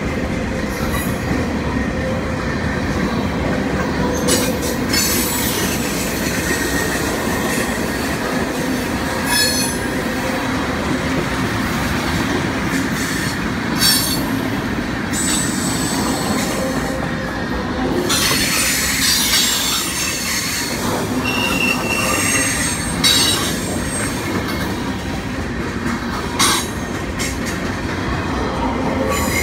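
Norfolk Southern freight train's cars rolling past with a steady rumble, wheels squealing against the rails now and then in high-pitched ringing squeals, the longest and loudest about two-thirds of the way through, with a few knocks of wheels over rail joints.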